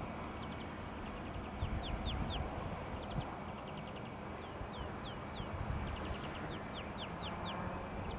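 Small birds singing: runs of short, quick high chirps over a low, steady outdoor rumble.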